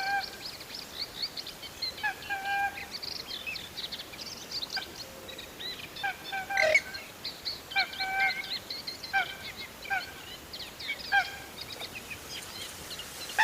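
Birds calling: short calls with a clear pitch repeated about once or twice a second, over constant higher chirping.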